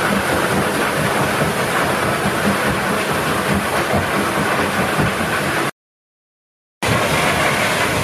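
Bucket-wheel sand washing machine running: wet sand and water pouring and splashing off the turning buckets over a steady machinery rumble. The sound cuts out completely for about a second a little past the middle, then resumes.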